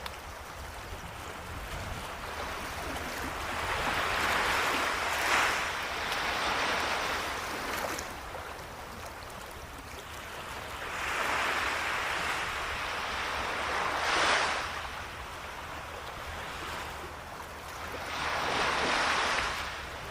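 Ocean waves surging and washing on a shore, three swells, each building for a few seconds and falling back, roughly every seven seconds, with a quieter wash between.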